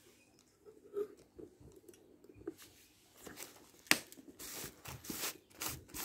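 Plastic screw-top lid being twisted on a plastic jar, with a plastic bag sheet trapped under it crinkling. A sharp click comes near four seconds in, then short crackling rasps about three or four a second as the lid turns.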